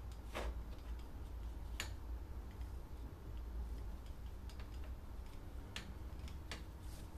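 Paintbrush being worked at the paint table: a few faint, irregular clicks and taps, spaced a second or so apart, over a low steady hum.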